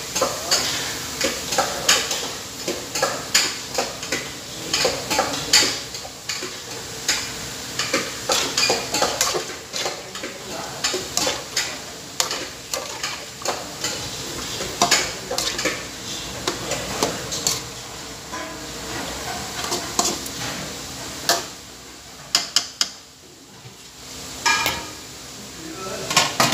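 A metal spoon stirs and scrapes chicken pieces in an aluminium wok, clinking often against the pan over the sizzle of the meat frying in soy sauce. It goes quieter briefly, then near the end a metal pan lid clanks as it is handled.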